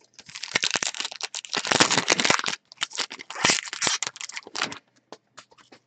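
Foil wrapper of a 2020 Panini Diamond Kings baseball card pack being torn open and crumpled by hand. The dense crinkling comes in two long spells, then trails off into a few small crackles.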